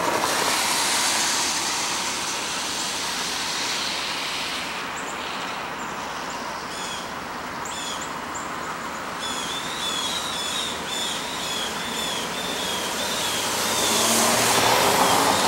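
Norfolk Southern freight train led by GE D9-44CW locomotives, approaching from a distance: a steady rushing noise that grows louder near the end as low engine tones come in. High, repeated chirps sound over it from about five seconds in.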